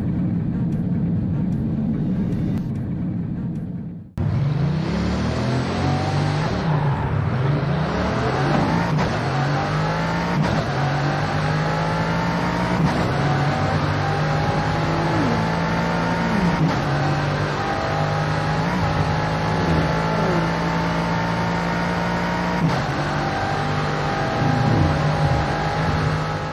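Bugatti 8.0-litre quad-turbo W16 engine running flat out at high speed. After an abrupt cut about four seconds in, a second run starts: the engine accelerates hard, its pitch climbing and dropping back at each upshift, then rising slowly as the car nears top speed.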